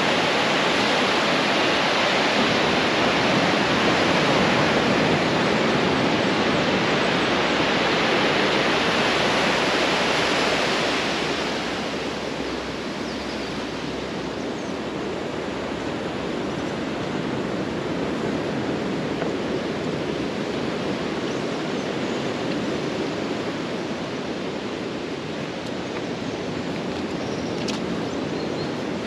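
Surf washing onto a beach: a steady rushing noise that turns quieter and duller about eleven seconds in.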